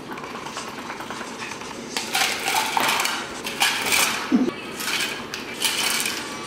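Ice cubes tipped from a plastic scoop into plastic cups of milk, clattering and clinking in several bursts about two seconds in.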